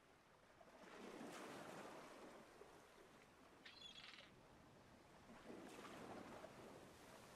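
Near silence: a faint background hiss that swells softly twice, with one brief high chirp about four seconds in.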